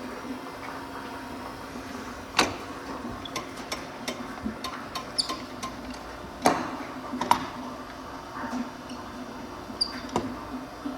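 Surface grinder running with a steady electric hum, with several sharp clicks and metallic knocks scattered through it, the loudest about two and a half seconds and six and a half seconds in.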